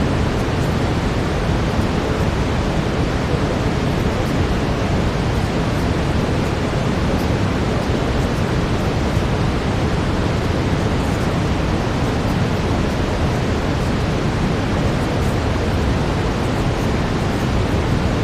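Steady brown noise: an even, deep rushing hiss, heaviest in the low end and unchanging in level.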